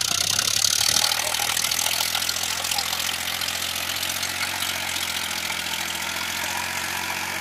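Powertrac Euro tractor's diesel engine running steadily under load, pulling a tillage implement through dry ploughed soil.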